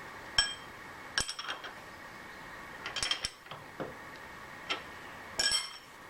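Metal parts or tools clinking and knocking as they are handled and set down: about half a dozen sharp clinks, several with a brief metallic ring, over a steady faint hum.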